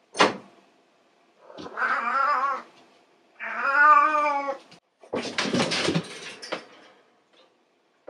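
Siamese-mix cat yowling: two long, drawn-out calls with a wavering pitch about two and four seconds in, the second louder, followed by a rougher, noisier sound. A sharp click right at the start.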